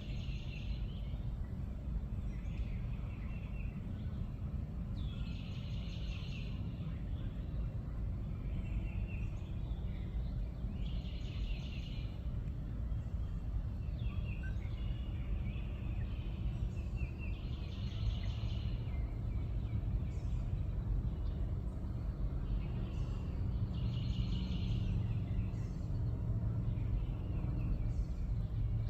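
A bird calling, a rapid pulsed phrase about a second long repeated roughly every six seconds, with fainter calls in between, over a steady low outdoor rumble.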